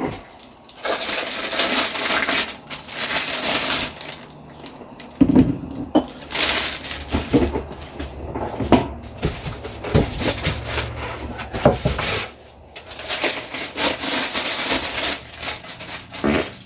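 Plastic and foam packing crinkling and rustling as parts are unpacked, with irregular knocks and clicks of parts being handled. A low steady hum sounds from about five seconds in to about twelve seconds in.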